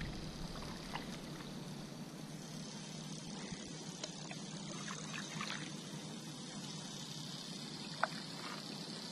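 Kayak paddling: water trickling and dripping off the paddle blade with each stroke, with scattered small drips and one sharper tick near the end.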